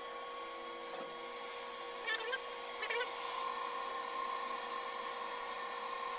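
CNC lathe turning a metal part: the spindle and drives run with a steady whine and hiss, broken by two short squeals about two and three seconds in as the tool cuts.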